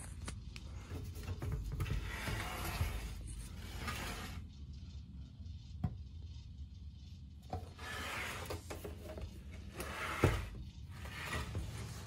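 Handling noise from a plastic box fan being moved about: stretches of rubbing and scraping, a short knock about six seconds in and a louder one about ten seconds in, over a low steady rumble.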